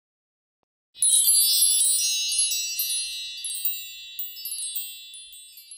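Bright chime sound effect: a quick run of many high metallic tones struck about a second in, ringing on and slowly fading away.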